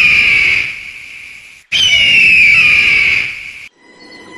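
A bird of prey's long, harsh scream that slides down in pitch, heard twice in a row, the second starting about two seconds in. It cuts off sharply near the end, leaving faint steady whistling tones.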